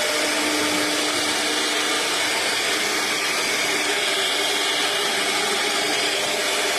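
CNC router spindle running and cutting MDF board, a steady, even rushing noise with a faint hum underneath.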